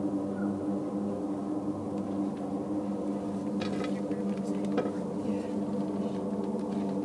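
A steady, low droning hum made of several held tones, the unexplained 'strange sound' heard from the sky. The listeners trace it to no plane, vehicle or oil rig.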